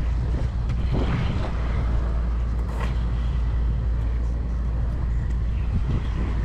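Inline skate wheels rolling over an asphalt path, a steady low rumble with a few faint clicks.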